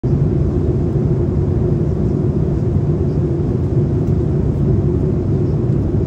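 Steady cabin noise of an airliner in flight: a constant low engine and airflow rumble with no change in pitch.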